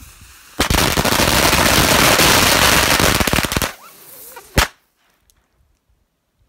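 Jitterbug firework going off: a faint hiss, then about half a second in a loud, dense volley of rapid firecracker pops lasting about three seconds. One last sharp bang follows about a second later.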